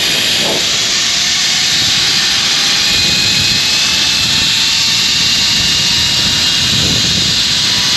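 Zipline trolley running along the steel cable: a steady, loud rushing hiss with a faint whine that slowly rises in pitch.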